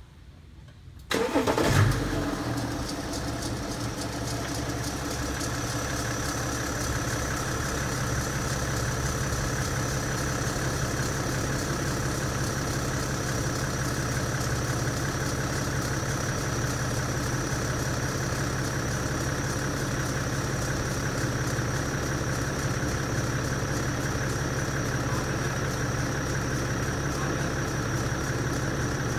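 BMW F10 525d diesel engine cranking and starting about a second in, flaring briefly, then settling to a steady idle. A thin, steady high-pitched whine runs over the idle throughout; the owner hears a weird noise at start-up and does not know its cause.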